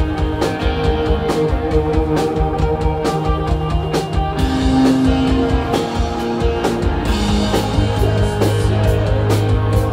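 Live rock band playing: electric guitar notes held over steady drumming, the chord shifting twice.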